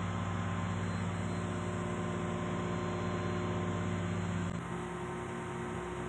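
Steady machinery hum of a ship's accommodation air-conditioning compressor running. Its lowest part drops away about four and a half seconds in.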